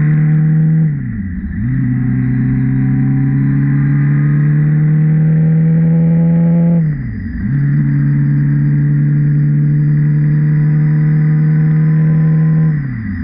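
Honda CB650R's inline-four engine pulling under way, its note climbing slowly, with three short drops in engine pitch and loudness about a second in, about seven seconds in and near the end, after which it picks up again.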